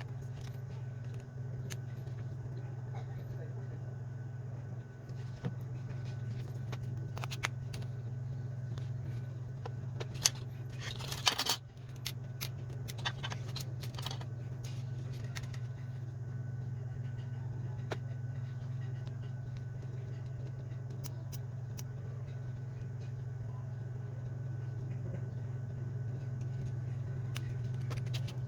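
Small scattered clicks and taps of parts and tools being handled while a smartphone is taken apart, with a brief scraping rattle about eleven seconds in, over a steady low hum.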